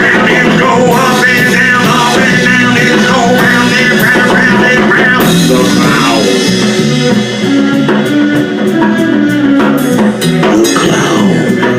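Rock band playing an instrumental passage on drum kit and guitar, with high bending melodic lines over the first half and sharper drum and cymbal hits in the second half.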